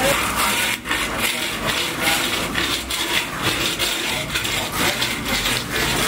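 Metal trowel scraping mortar in a bucket and against concrete: a run of rough, gritty scraping strokes.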